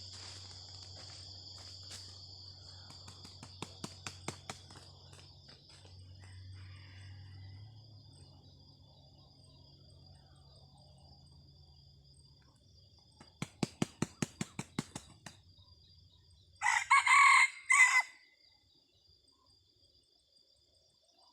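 A red junglefowl rooster gives one short, loud, clipped crow a few seconds before the end. Shortly before the crow there is a quick run of about ten sharp claps, and insects drone steadily in the background throughout.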